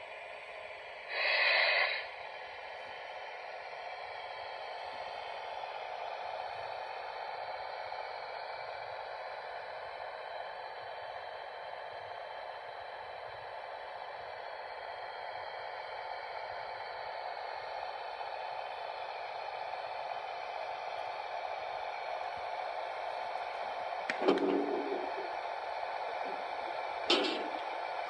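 Steady whirring and rumbling of model trains running on the layout's track, with a short loud hiss about a second in and two brief clanks near the end.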